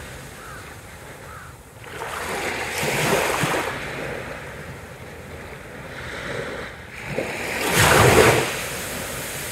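Small waves washing up onto a sandy beach close to the microphone: two swells of surf, the louder one near the end.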